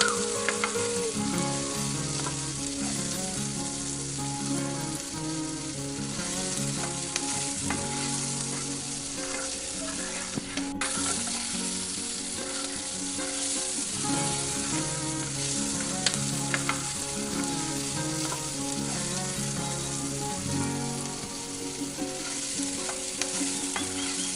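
Food sizzling and frying in hot oil in a miniature pan, with a small utensil stirring it. The sizzle stays steady throughout.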